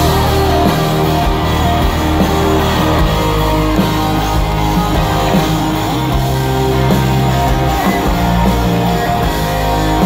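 A rock band playing live in an arena, heard from the crowd: electric guitars over held bass notes that change every couple of seconds.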